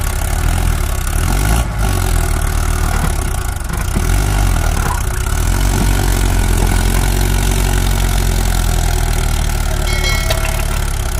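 Mahindra Arjun tractor's diesel engine running steadily under load as it hauls a trailer heaped with soil through mud.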